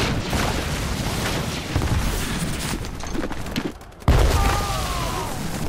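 Battle sound effects: dense, rapid gunfire, then a brief lull and a sudden loud explosion about four seconds in.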